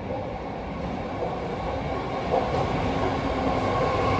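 Six-car BART Fleet of the Future train pulling into the platform: its running noise on the rails grows steadily louder, with a steady whine coming in near the end.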